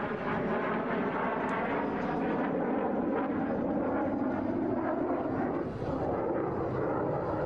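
Fighter jet in flight overhead, its engine noise a steady roar.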